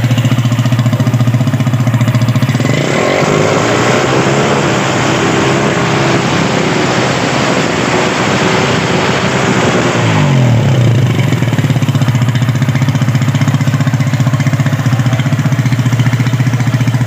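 Honda CG 125 single-cylinder four-stroke engine running through an aftermarket 'machine gun' exhaust silencer: a fast, even idle, revved up about three seconds in and held for several seconds, then dropping back to idle.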